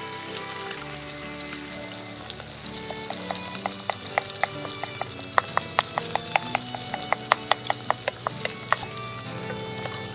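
Food sizzling steadily in a hot frying pan, with a run of sharp, ringing clinks in the middle as the spatula strikes and scrapes the pan while stir-frying.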